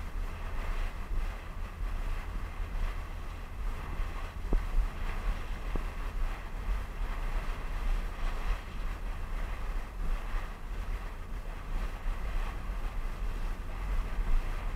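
Wind buffeting the microphone in gusts over the steady rush of a moving boat's churning wake.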